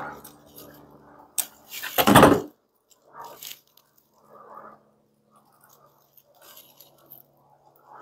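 Small handling sounds of hand wiring work on a compressor: a sharp click, then a brief loud scraping rustle about two seconds in, a shorter one a little later, and faint rustles and ticks of wire connectors and tools being handled.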